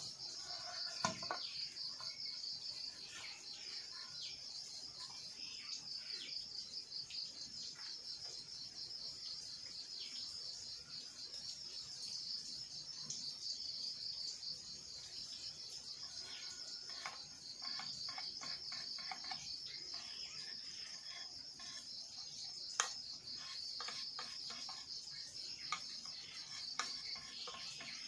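Steady high, pulsing trill of an insect chorus, with scattered light clicks and knocks of bamboo poles being handled and worked by hand, and one sharper tap near the end.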